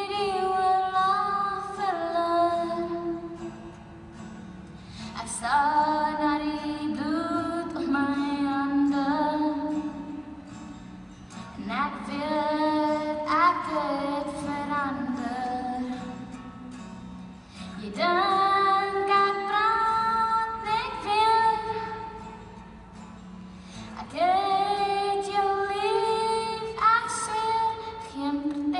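A young woman singing in Afrikaans to her own acoustic guitar accompaniment. Her sung phrases last a few seconds each, with short pauses between them where the guitar carries on alone.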